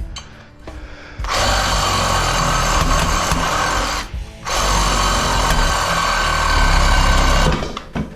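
Reciprocating saw cutting through copper pipe: it starts about a second in, stops briefly around four seconds, then cuts again until just before the end.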